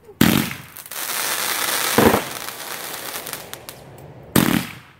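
Consumer aerial fireworks going off: three sharp bangs about two seconds apart, with a loud crackle and hiss between the first two that fades before the third.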